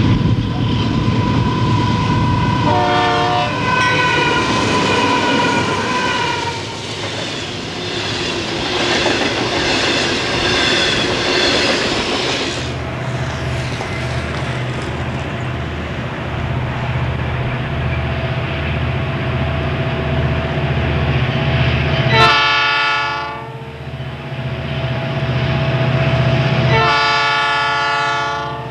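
Diesel freight trains passing with their air horns. First a horn blast about three seconds in over the rumble and rail noise of an approaching coal train. After a cut, the low pulsing engines of a Southern Pacific EMD SD45T-2-led lashup, which sounds two loud horn blasts about four seconds apart near the end.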